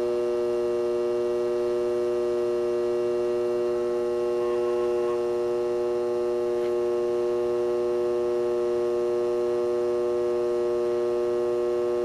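Furnace blower motor humming steadily, with a mains-frequency hum of several even tones. It is still running on the sequencer's last stage while the sequencer counts down its timed shut-down after the thermostat has switched off.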